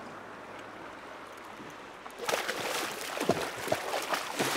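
River water running steadily. About two seconds in, a hooked steelhead breaks the surface beside the boat and thrashes, setting off loud, choppy splashing that goes on to the end.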